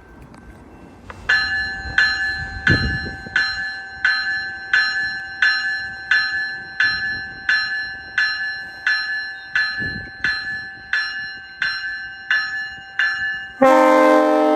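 GO Transit train bell ringing steadily, about one and a half strikes a second. Near the end a multi-note train horn starts abruptly and is the loudest sound.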